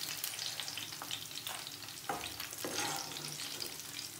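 Brinjal slices and dried red chillies sizzling and crackling in hot oil in a wok, with a steel slotted spoon scraping and clinking against the pan now and then as the pieces are lifted out.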